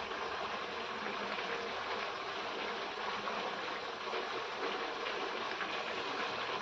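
Kadha, a tulsi-and-ginger herbal decoction, boiling with a steady, even bubbling hiss.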